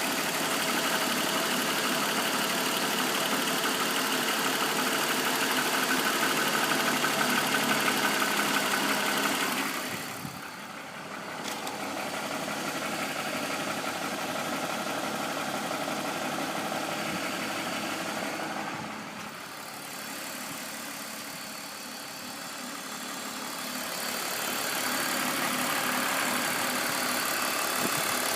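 BMW M54B25 2.5-litre straight-six idling warm, with a knock from the front right of the engine that appears once it has warmed up. The owner has ruled out the VANOS and suspects the timing chain. The sound drops in level twice and comes back up near the end.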